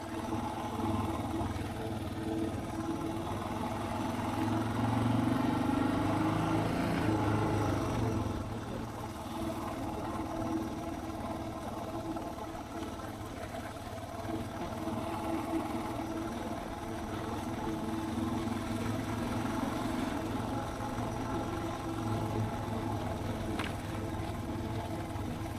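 Suzuki DR650's single-cylinder engine running as the bike is ridden along, its revs climbing and easing off about five to eight seconds in, where it is loudest.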